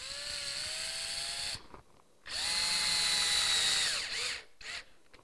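Cordless drill-driver securing a plastic ridge end cap with a fixing, in two runs of a second and a half or so each; the second run is louder and winds down at its end. Two short blips of the trigger follow near the end.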